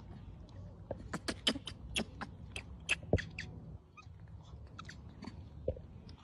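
Macaques giving a quick run of short, high squeaks starting about a second in, about five a second for a couple of seconds, then a few scattered squeaks.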